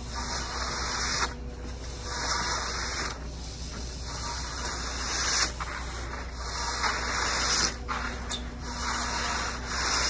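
Hand floats sweeping across wet concrete: a repeated rough scraping swish, rising and falling with each stroke, with a few sharp scrapes.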